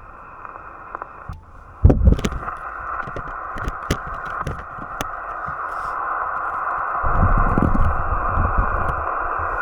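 Yaesu FT-891 HF transceiver's speaker hissing with band noise on an open single-sideband frequency, with scattered crackles of static; the hiss grows louder about two seconds in. Low rumbles of wind on the microphone come about two seconds in and again in the last few seconds.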